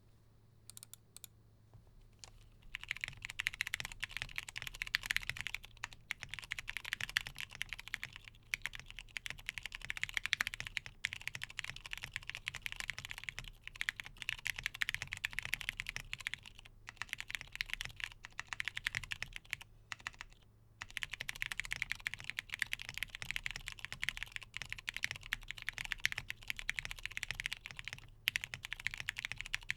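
Fast continuous typing on a mechanical keyboard with lubed Hyperglide Cherry MX Brown tactile switches, PBT keycaps and a polycarbonate plate, starting about two and a half seconds in, with a few short pauses.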